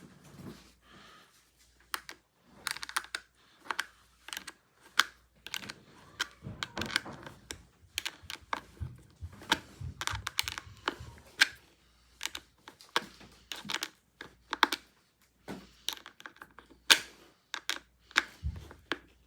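Irregular small metal clicks and taps, a few a second and uneven, from a washer and nut being worked onto a screw fitted in place of a hockey skate's missing rivet, with a few duller knocks of the skate being handled.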